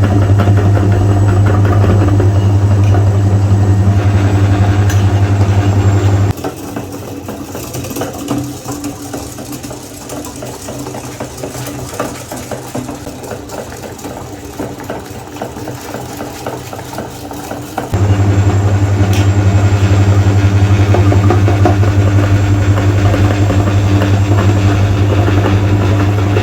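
Electric meat grinder motor running with a strong low hum. About six seconds in the hum gives way to a quieter stretch of fine crackling, and the loud hum returns about eighteen seconds in.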